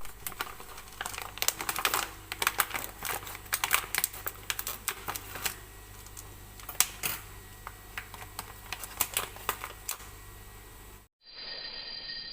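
A fast, irregular run of light clicks and taps from small hard objects being handled; it cuts off about eleven seconds in.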